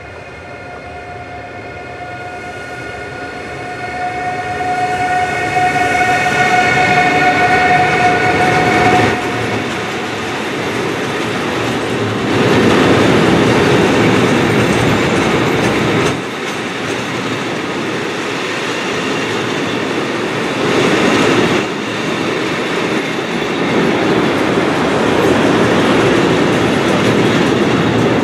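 An electric locomotive approaches and passes with a steady whine that grows louder and cuts off about nine seconds in. Its train of tank wagons follows, rolling by with a continuous rumble and rhythmic wheel clatter over the rail joints that swells several times.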